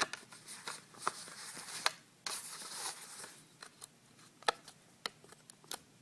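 Laptop hard drive and its bay being handled: scattered small plastic and metal clicks, with a brief sliding scrape about two seconds in.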